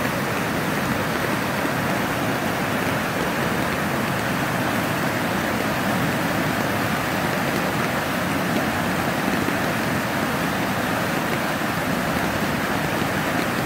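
Flooded stream overflowing across a road and down a grassy bank: a steady, even rush of fast-moving water.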